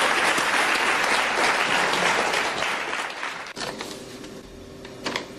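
A hall full of schoolchildren applauding, the clapping dying away about three and a half seconds in, leaving a faint steady hum.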